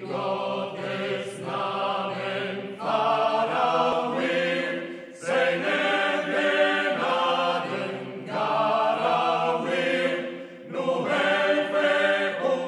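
A choir singing a chant in long held notes, phrase after phrase of about two to three seconds each.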